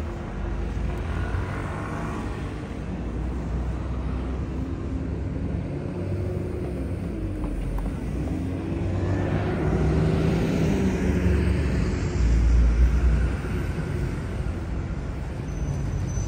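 Road traffic at a town-centre junction: steady engine and tyre rumble of passing vehicles, one passing close and loudest about three-quarters of the way through before fading.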